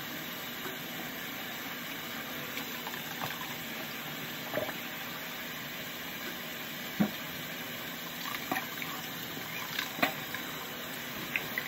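Bathroom tap running steadily into a sink, with a few faint knocks.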